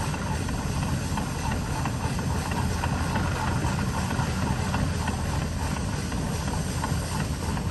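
Fowler steam ploughing engine working, with a steady hiss of steam.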